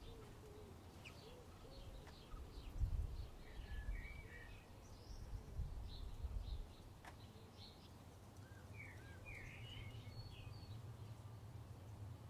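Small songbirds chirping and twittering in the background, in two bouts of quick high calls. A low rumble, most likely wind, swells from about two seconds in and stops about six and a half seconds in.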